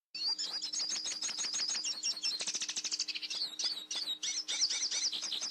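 Bird chirping and twittering in a fast, continuous run of warbling trills, over a faint steady hum.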